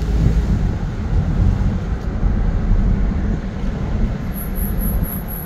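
Steady low rumble of engine and road noise heard inside the cabin of a moving Nissan 4x4.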